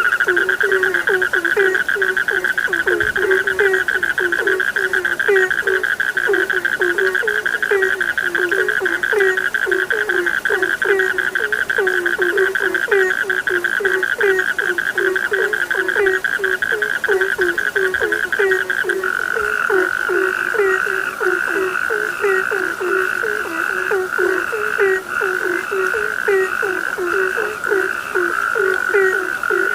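A chorus of frogs croaking, the low croaks repeating a few times a second. Over them runs a continuous high trill, which changes to a slower pulsing about two-thirds of the way through.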